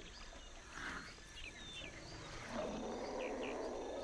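An elephant gives a long, rough roar that starts about two and a half seconds in and is held, over birds chirping and insects in the forest.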